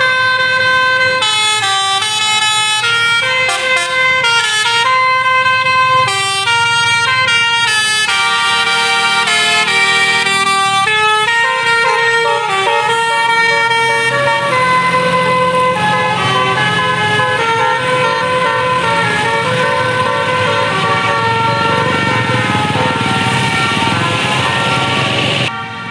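Bus telolet horn, a basuri multi-tone air horn, playing a melody of quick changing notes. About halfway through the notes are held longer over a steady rushing noise, and the horn cuts off abruptly near the end.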